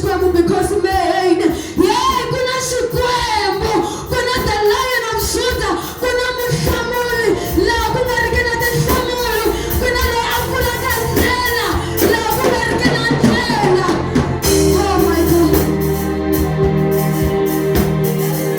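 Worship song: voices singing over an instrumental backing. About 14.5 seconds in, the voices drop away and the instruments carry on with held chords and a steady beat.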